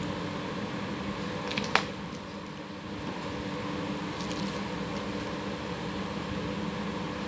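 Steady background machine hum, like a fan or air conditioner. About two seconds in there is a single sharp click as the metal seal parts are handled, with faint rustling of plastic wrapping.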